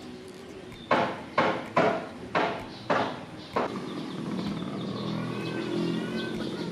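Six short metallic clinks and knocks, about half a second apart, as a ground wire and bolt are worked onto a motorcycle's ignition coil mount with an 8 mm T-wrench.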